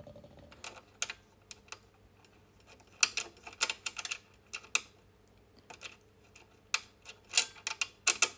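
Irregular small clicks and taps of a metal three-fold binder attachment being positioned and screwed down onto a coverstitch machine's bed, bunched in two flurries, about three seconds in and near the end.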